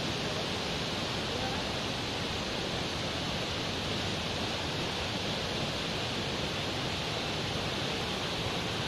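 Muddy floodwater of a waterfall in spate rushing over rocks: a steady, unbroken wash of water noise. The river is in flood after a landslide upstream.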